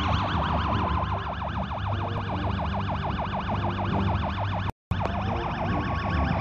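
Police siren on a fast yelp, rapid rising-and-falling sweeps several times a second, cutting out for a split second about three-quarters of the way in.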